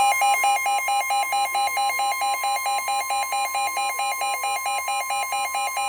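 NOAA Weather Radio's steady 1050 Hz warning alarm tone, with a second electronic alert tone over it that warbles rapidly between two pitches several times a second, announcing an incoming severe thunderstorm warning.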